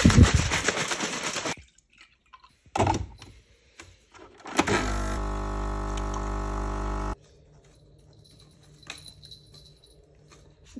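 A plastic bottle of almond milk shaken hard for about a second and a half. A few seconds later a capsule coffee machine's pump buzzes steadily for about two and a half seconds as it brews into a mug, then cuts off suddenly.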